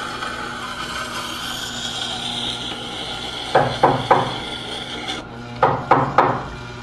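Two quick groups of three sharp wooden knocks, the first about halfway through and the second near the end, over a steady background hum.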